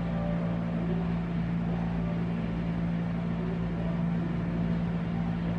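A steady low machine hum, one constant droning tone over an even noise, holding level with no breaks.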